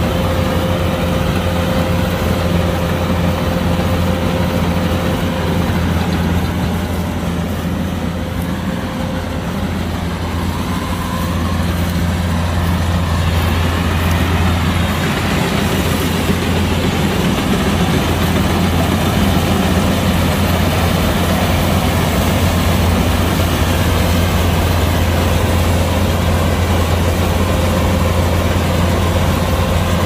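Kubota DC-105X combine harvester's diesel engine running steadily at working speed, easing off slightly for a few seconds about a quarter of the way in.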